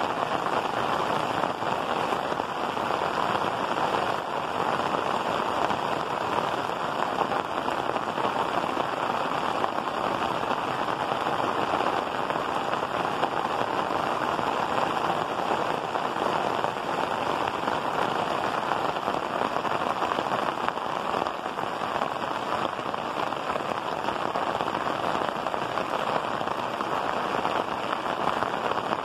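Heavy rain falling steadily on clay tile roofs, an even hiss that does not let up.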